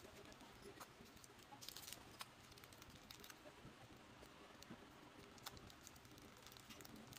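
Faint, scattered plastic clicks and ticks from a hard plastic model-kit sprue being handled and parts being snipped off it with hobby nippers, over quiet room tone. There is a small cluster of clicks about two seconds in.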